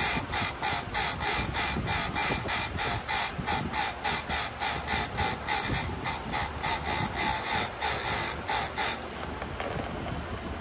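Quick, even metallic strokes or clicks, about three a second, that stop about nine seconds in: hand work on a chainsaw chain.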